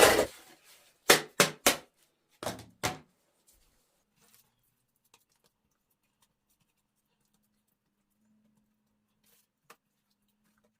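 A quick run of about six sharp knocks in the first three seconds, the first one the loudest.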